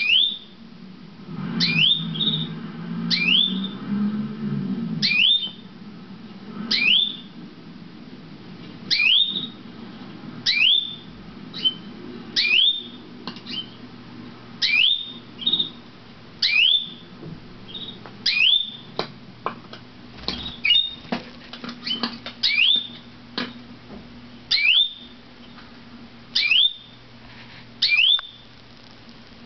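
Domestic canary calling: single short, sharp notes that sweep up and hold briefly at a high pitch, repeated about every one and a half to two seconds.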